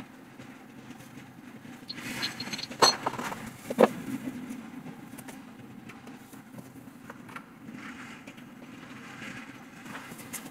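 White steel tubes and a perforated metal mesh panel of a flat-pack furniture frame clattering as they are handled and fitted together, with two sharp metal knocks about three seconds in, then a few light taps. A steady low hum sounds underneath.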